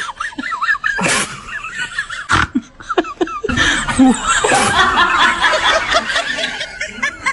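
People laughing, several voices at once, in a mix of broken giggles and noisier stretches.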